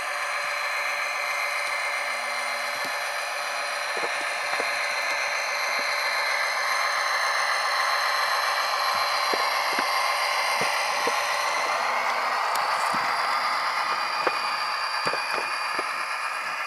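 HO-scale model locomotive's Tsunami sound decoder playing diesel engine sound through its small on-board speaker, running steadily with a shift in tone partway through. Scattered small clicks run through it, more of them near the end.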